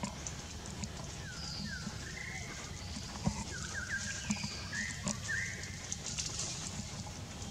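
Short high chirping calls, several in quick runs of three or four, with a few soft knocks, over a steady low outdoor rumble.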